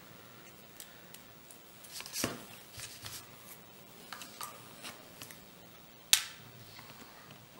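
A small servo and its plastic IDS mounting frame being handled by hand: light plastic clicks and rustles, a louder knock about two seconds in, and one sharp click about six seconds in as the tools on the bench are reached for.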